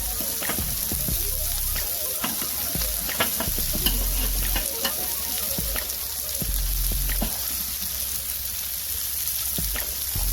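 Smash burgers sizzling on a hot griddle plate: a steady frying hiss with scattered crackles and pops.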